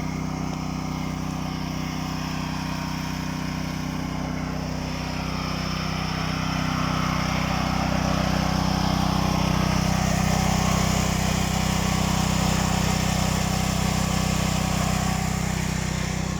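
Portable power generator's small engine running steadily with an even hum, growing louder partway through.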